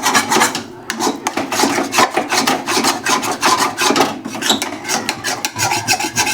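Spatula scraping and stirring thick turmeric halwa roasting in ghee in a pan: quick, repeated scraping strokes, several a second.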